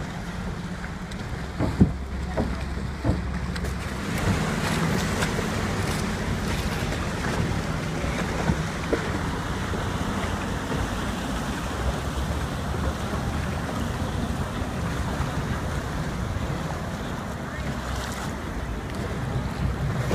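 Canal water lapping and splashing around a moving gondola, with wind buffeting the microphone and a steady low rumble of motorboat traffic. A few sharp knocks sound in the first three seconds.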